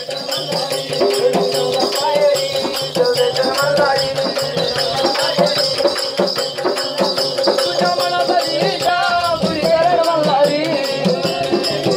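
Live folk music: a wavering melody line over steady, rhythmic jingling rattle-like percussion.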